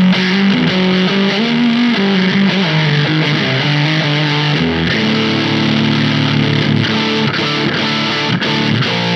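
Electric guitar played through the Intensive Care Audio Vena Cava Filter pedal: a melodic line of notes, some sliding in pitch, settling into held notes about five seconds in.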